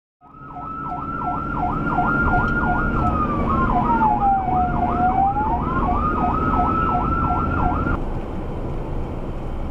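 Emergency rescue vehicle sirens: a fast yelping siren that dips in pitch about three times a second, joined in the middle by a slower wail that falls and rises again, over a low vehicle rumble. The sirens stop about eight seconds in.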